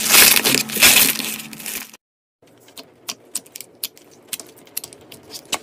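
Hands squeezing a textured green slime in a plastic bowl, giving a dense, loud crackling crunch for about two seconds. After a short break, a glossy purple slime is poked and pulled, with scattered soft clicks and pops as it sticks and releases.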